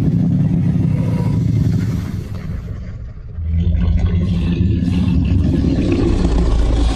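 Loud, deep rumbling monster sound effect that eases off about two seconds in and swells back up at about three and a half seconds.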